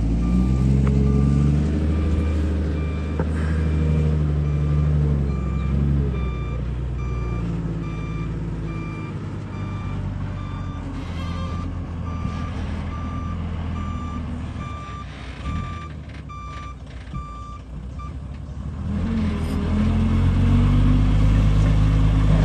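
Reversing alarm on a construction vehicle beeping at a steady, even pace, over the machine's engine running and changing pitch as it works. The beeping stops about three-quarters of the way in, and the engine grows louder near the end.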